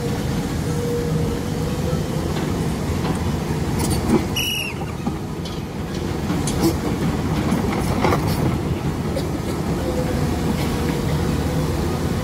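Komatsu PC210 long-arm excavator's diesel engine running steadily under load, with a few sharp metallic knocks and a brief high tone about four seconds in.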